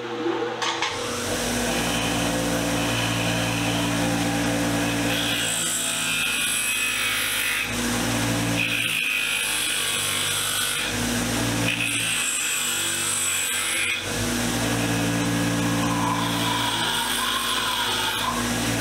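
Bench grinder with wire wheels starting up about a second in and then running steadily. A brass part is pressed against the spinning wire wheel in four spells of a couple of seconds each, adding a scratching hiss: the wheel is stripping oxidation from the part.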